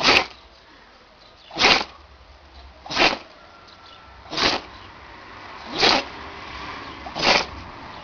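Young German Shepherd-type dog sneezing over and over: six short, sharp sneezes at an even pace, about one and a half seconds apart.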